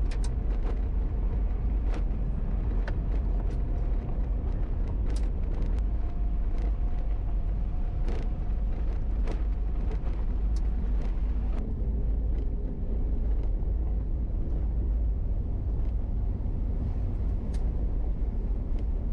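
Mitsubishi L300 Delica 4WD van driving on a gravel road, heard from inside the cab: a steady low engine and road rumble with a faint drone, and scattered sharp clicks and ticks throughout.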